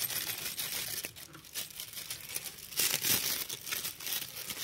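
Honeycomb kraft paper packing wrap crinkling and rustling as it is handled and pulled open by hand, with a louder burst of crackling about three seconds in.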